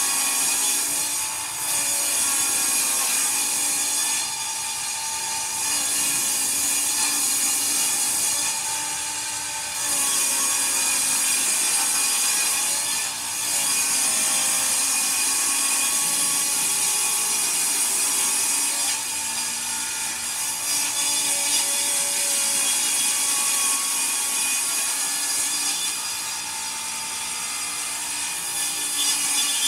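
Table saw running and ripping a long rough-sawn board lengthwise into narrow strips along the fence. The blade noise is loud and continuous, easing off briefly several times as the board is repositioned and fed on.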